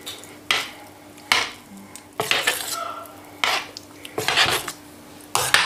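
Metal spoon stirring thick puréed lentil soup in a stainless steel pot, knocking and scraping against the pot's side about once a second, six times in all.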